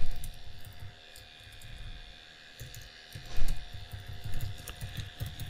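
Computer keyboard typing: a run of irregular key clicks, with heavier low thumps at the start and about three and a half seconds in.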